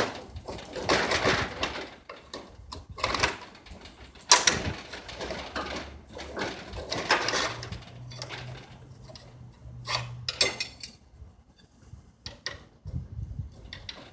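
Irregular metallic knocks, clicks and rattles of tools and hardware being handled during door spring repair work. A low steady hum runs for a few seconds in the middle.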